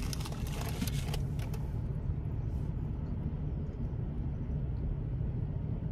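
Steady low rumble of an idling car heard from inside the cabin, with crackling handling noise in the first second or so as a fried pickle is picked out of a paper food boat.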